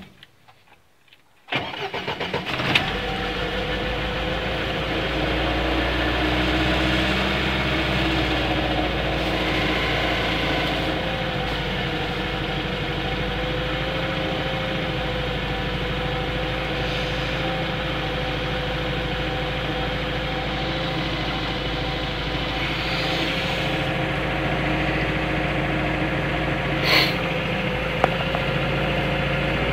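Car engine running at a fast, steady cold idle, with the tachometer at about 1,500–2,000 rpm, after a brief dropout of near silence at the start. Two sharp clicks near the end.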